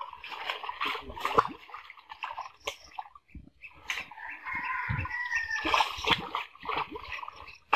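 Water splashing and sloshing in irregular bursts as a seine net is hauled through a shallow pond, with fish thrashing inside the closing net.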